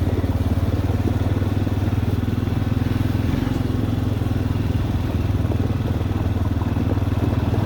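A quad's (ATV's) engine running steadily at a constant low speed, in an even, rapid pulse.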